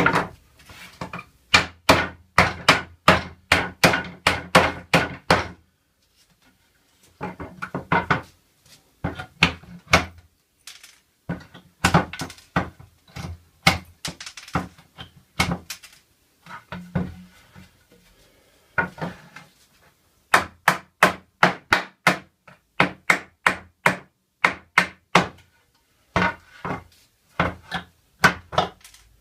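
Claw hammer striking pallet-wood boards in quick runs of about three or four blows a second, with short pauses between runs, as old nails are knocked loose from the slats.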